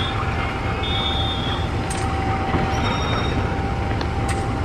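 CC 201 diesel-electric locomotive running close by: a steady low engine rumble with a steady whine over it. Brief high-pitched squeaks come through a few times.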